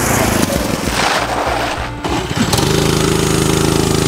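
Honda GX200 single-cylinder kart engine running at full throttle, held at its governor's limit. About two and a half seconds in, an uneven, rushing sound gives way abruptly to a close, steady buzz at one unchanging pitch.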